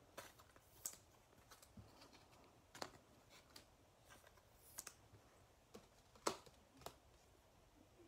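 Trading cards being handled and sorted by hand: scattered light clicks and taps as cards are flicked, slid and set down on a mat, the sharpest about six seconds in.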